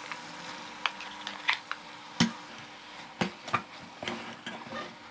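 Steel spoon clinking and scraping against an aluminium pot as ground masala paste is stirred into brinjal pieces frying in oil, with a faint sizzle underneath. Sharp clinks come about once a second.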